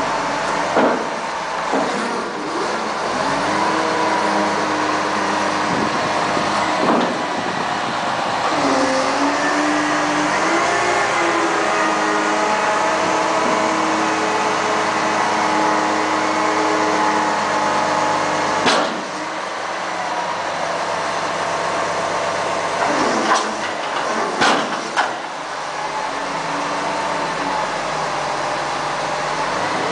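Terex reach stacker's diesel engine running steadily, its pitch rising and falling as the hydraulic boom is raised and retracted. Several sharp knocks are heard along the way.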